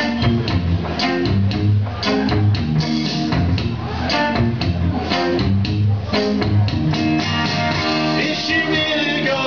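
Instrumental break in a song: guitar strummed in a steady rhythm over a bass line.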